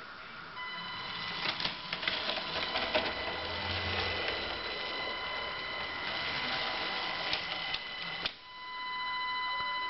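LEGO train motor running with a steady high-pitched whine, with scattered clicks of the plastic train and track. About eight seconds in the clicking stops and the whine carries on alone.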